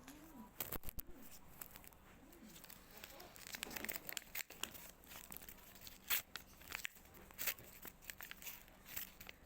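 Paper and tape crinkling and tearing in irregular crackles as a homemade paper squishy packet is pulled open, the crackles busiest in the middle.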